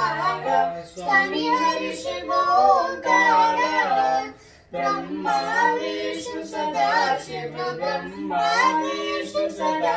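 A woman and a young girl singing a Hindu devotional hymn together, read from a prayer book, in sung phrases with a brief pause about halfway through.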